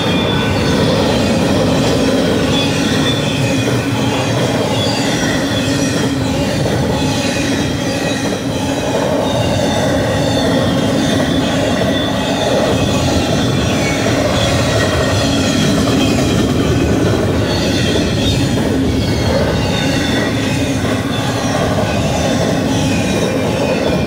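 Intermodal freight cars of a BNSF train rolling past at speed: steel wheels on rail give a steady loud rumble with clatter and steady high-pitched ringing tones over it.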